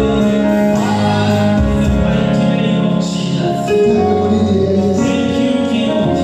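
Gospel music with singing: voices over a steady band accompaniment.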